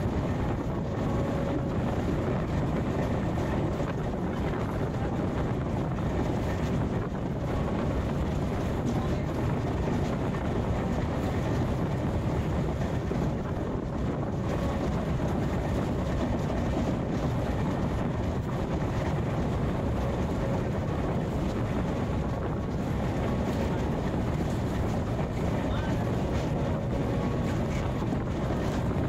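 Express train running steadily, its running noise mixed with wind buffeting the microphone.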